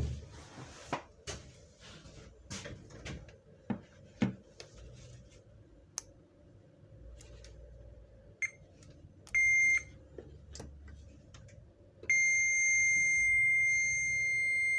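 Digital multimeter's continuity beeper testing a moulded-case circuit breaker: a few light clicks and knocks of the test probes, then a short beep, a half-second beep, and from about twelve seconds in a steady held tone as the probes close the circuit through the breaker's pole, a sign that its contacts conduct.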